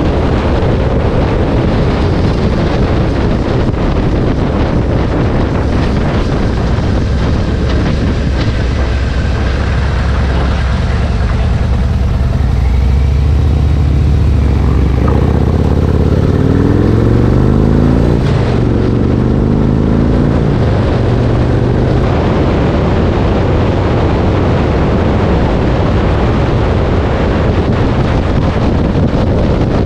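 Harley-Davidson motorcycle's V-twin engine running under way, with heavy wind noise on the microphone. About halfway through, the engine note climbs for a few seconds as the bike speeds up, then settles back.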